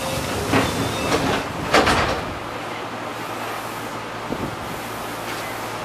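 Sliding doors of Enshu Railway train 2007F closing at a station stop: two thuds about a second apart, then the steady hum of the standing electric train.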